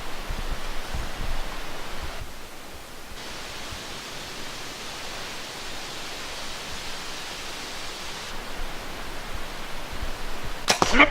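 Steady hiss of woodland ambience, with a brief sharp rustle-like burst near the end, the loudest moment.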